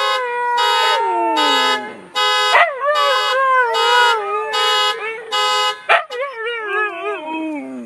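A car alarm sounds its horn in a steady pulse of about one and a half blasts a second while two Siberian huskies howl along with it. The horn stops about five and a half seconds in, and the huskies' howling carries on, wavering, then sliding down in pitch as it dies away at the end.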